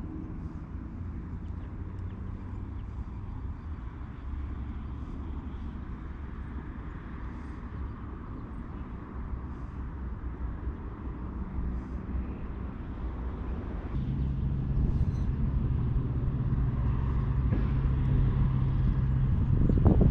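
Distant engine drone: a steady low hum that grows louder toward the end, with a stronger low tone coming in about two-thirds of the way through.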